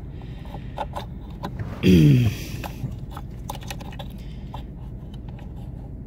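Small clicks and scrapes of hands working a plastic brake pedal position sensor into place on the brake pedal bracket under the dash, with a short grunt falling in pitch about two seconds in, over a steady low hum.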